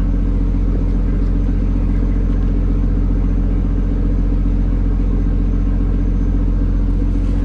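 Fishing boat's engine running steadily, a low, even drone that does not change.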